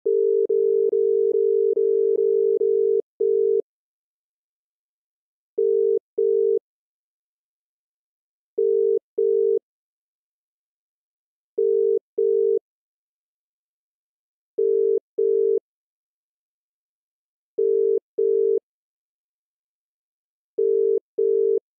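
Telephone line tone sound effect: one steady low tone cut into short beeps. A quick run of beeps for about three seconds, then pairs of short beeps repeating about every three seconds.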